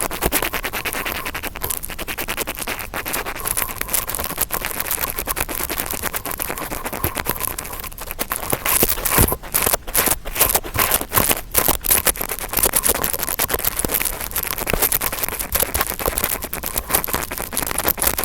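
Ear-cleaning ASMR sounds made with an interdental brush: dense, rapid scratching and crackling, with sharper, more uneven strokes from about halfway through.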